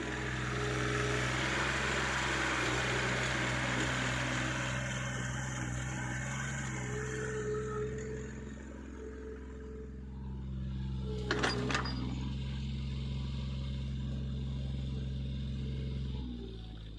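Backhoe's diesel engine running steadily, with a broad rushing noise over the first several seconds. A sharp metallic clank comes about eleven and a half seconds in, and the engine note drops near the end.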